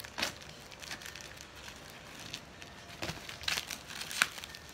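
Plastic-wrapped cardboard parcel packaging being cut and prised open with a knife: plastic crinkling and cardboard crackling. A sharp crackle comes just after the start, and a run of them comes about three to four seconds in.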